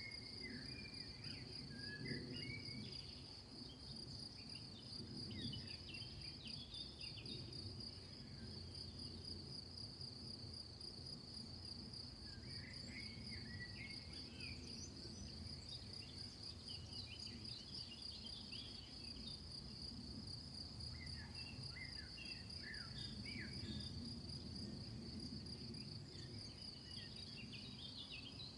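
Crickets chirping in a steady, continuous high trill, with clusters of short bird calls coming and going over a low background rumble.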